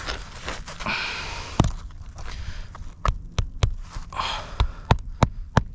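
Hammer driving a nail into a roof shingle: a single strike, then from about halfway a steady run of sharp blows, roughly three a second.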